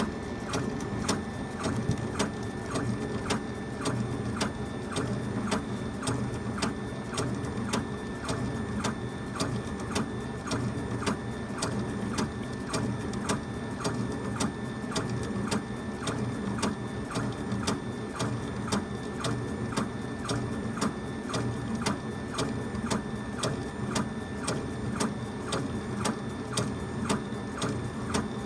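Laser engraver working on a wooden faceplate: its stepper motors hum steadily, with an even tick about twice a second as the head works across the piece.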